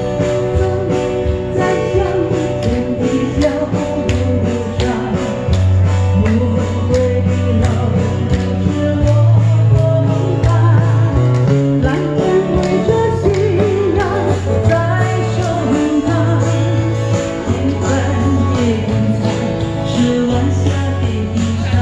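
Live amplified music from a singer with guitar accompaniment: a wavering sung melody over regular guitar strumming and a steady bass line, heard through PA speakers.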